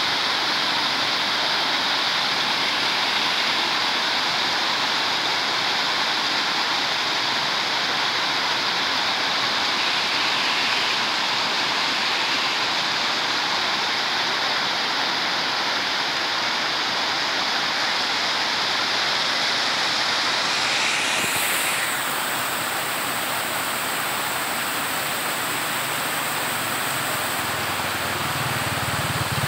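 Small waterfall cascading over smooth rock ledges: a steady rushing splash of falling water. About two-thirds of the way through the rush dips slightly and its hiss changes character.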